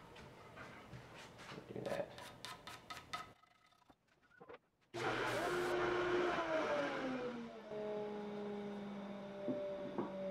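Light clicks and knocks of wooden parts handled on a padded bench, then after a short gap an electric belt sander's motor whining down in pitch as it coasts to a stop, leaving a steady machine hum.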